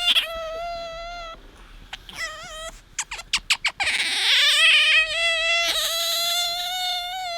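Asian small-clawed otter squeaking for attention: long, steady, high-pitched whistling calls, a wavering squeak about two seconds in, then a quick run of about five short chirps, a loud harsh squeal around four seconds in, and another long steady whistle to close.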